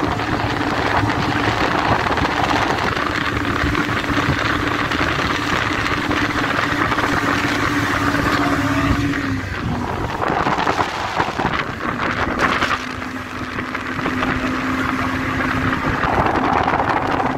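Outboard motor pushing a speedboat at speed, with rushing wind and water over it. The engine's steady tone drops away just before ten seconds in, then comes back a little lower a couple of seconds later.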